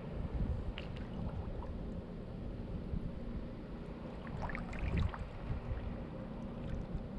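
Kayak paddle strokes with light splashes and drips, a few near the start and a small cluster about four and a half seconds in, over a steady low rumble of wind on the microphone.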